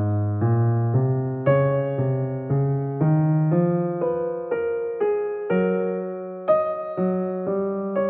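Background piano music: gentle notes about twice a second over a bass line that steps upward.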